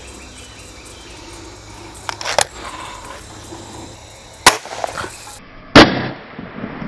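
Canon 350 .177 break-barrel air rifle fired once near the end: a single sharp, loud shot. Before it come sharp clicks of the gun being handled, two about two seconds in and a sharper one about four and a half seconds in.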